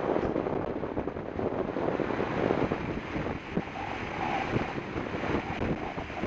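Wind buffeting the microphone of a camera on a mountain bike coasting fast down a paved road, mixed with tyre and road rumble and small irregular knocks from bumps in the surface.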